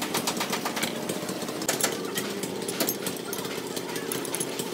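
Steady, rapid mechanical clatter from a running machine, with a few sharper metallic clicks.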